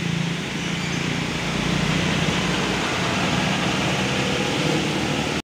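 Diesel engine of a Moedah intercity bus running with a steady low hum as the bus pulls away, over a constant hiss of heavy rain and tyres on the wet road.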